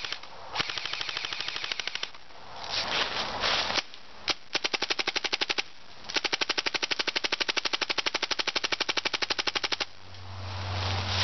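Airsoft rifles firing on full auto: a short burst, a couple of brief bursts, then one long burst of nearly four seconds at a rapid, even rate of fire.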